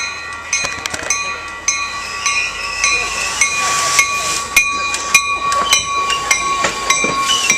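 Warning bell ringing steadily, a little under two strikes a second, as a Coaster commuter train comes into the station. The rushing noise of the train swells about halfway through and again near the end.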